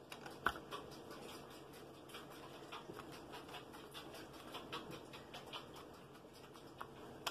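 Faint, irregular small taps, clicks and scratches of cut paper-plate pieces being handled and pressed down on a tabletop, with one sharper tap about half a second in.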